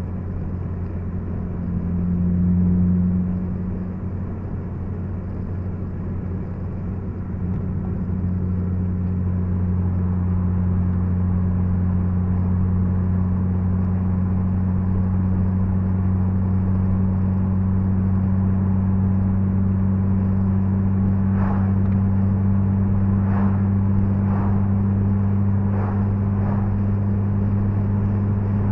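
Steady in-cabin drone of a Honda Civic Si's K20Z3 2.0-litre four-cylinder engine and its tyres while cruising at about 45 mph. The low hum grows slightly louder about eight seconds in. A few short knocks come near the end.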